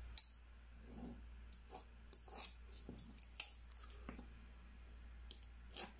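Faint, irregular clicks and light taps of scissors and drafting tools handled on a paper sewing pattern.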